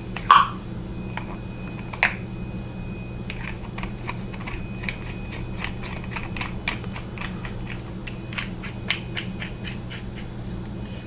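Batteries being put back into a metal flashlight body: a sharp clink just after the start, another about two seconds in, then a run of small clicks and taps. A steady low hum sits underneath.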